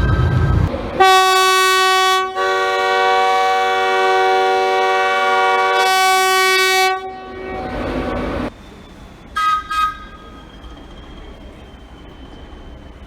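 UK train horn sounding: a brief high note at the start, then a long loud blast beginning about a second in, one note joined by a second note for a few seconds before dropping back to the single note. A low rumble of the train follows, then two short high toots and a faint fading whine.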